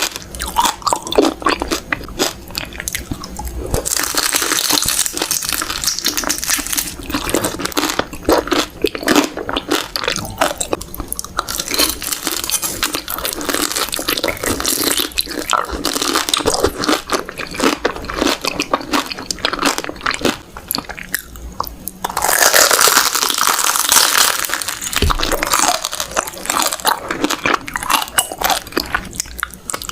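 Close-miked chewing and biting of beef large intestines, crunchy, crackling mouth sounds that come in dense runs and grow louder twice along the way.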